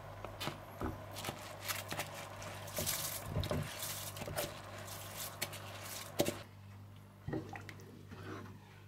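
Drained, soaked rice going into a pot of boiling spiced water: wet bubbling and splashing with many small clicks. About six seconds in comes one sharper knock, and then it turns quieter.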